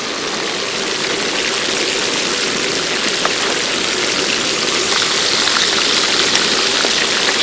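Fish frying in hot oil: a loud, steady sizzle full of small crackles, slowly growing louder.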